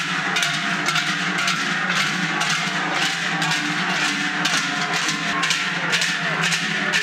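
Large cowbells (joareak) tied in pairs at the backs of several joaldunak clanging together in a steady rhythm with each step, their ringing tones overlapping. The special walking step of the warm-up is meant to make this even, uniform clang.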